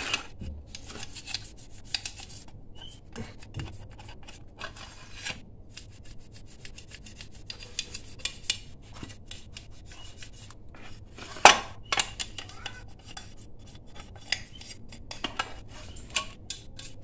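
Brush scrubbing thinner-softened paint off a Yamaha RX-King's aluminium engine case in quick scratchy strokes, with light clinks of the metal parts being handled. One sharp clank about eleven and a half seconds in.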